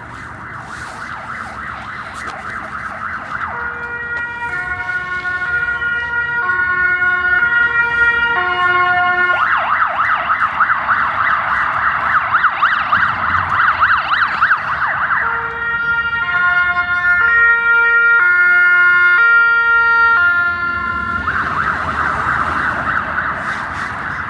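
Emergency vehicle siren switching back and forth between a fast warbling yelp and a two-note hi-lo pattern. It grows louder, is loudest a little past the middle, then fades as it passes.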